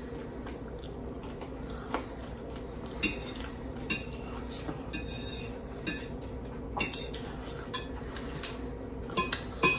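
Metal fork clinking and scraping against a glazed ceramic plate: scattered single clinks, with several close together near the end.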